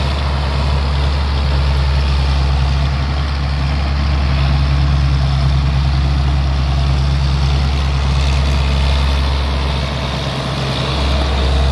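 Kangaroo crawler tractor's engine running steadily as it pulls a plow through dry soil. It holds a low, even hum throughout.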